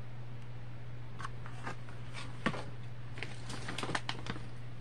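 Scattered light clicks and rustles of product boxes and plastic packaging being handled on a tabletop, over a steady low hum.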